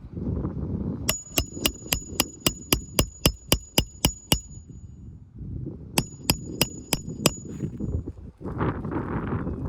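Steel hammer driving nails with quick, evenly spaced ringing strikes: a run of about a dozen, a pause, then six more.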